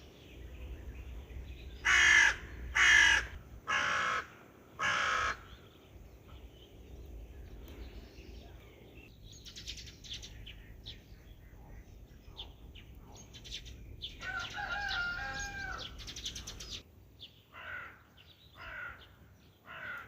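A crow cawing four times in a row, about a second apart, followed by fainter scattered bird calls.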